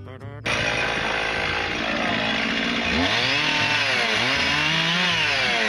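Guitar song cutting off abruptly about half a second in, then a chainsaw running hard while cutting into a log, its engine speed rising and falling repeatedly.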